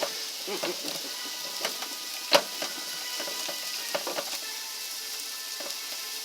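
Old hand-cranked meat grinder working chunks of beef roast into hamburger: soft squishing and scattered small clicks over a steady hiss, with one sharper click about two seconds in.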